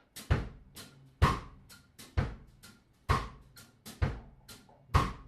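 Drum kit starting a steady beat about a quarter second in, with a loud kick-and-snare hit roughly once a second and lighter strokes in between.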